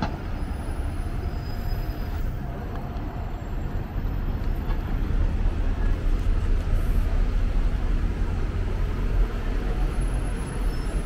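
Road traffic on a busy city street: a steady low rumble of engines and tyres that grows louder from about four seconds in.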